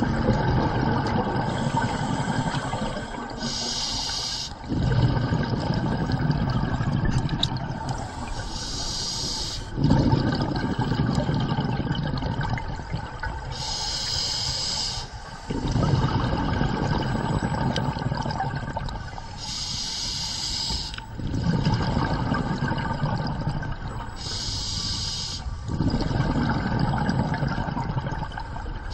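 Scuba diver breathing through a regulator underwater: about five breaths, each a short hiss as air is drawn from the regulator, followed by a few seconds of low bubbling as the exhaled air vents.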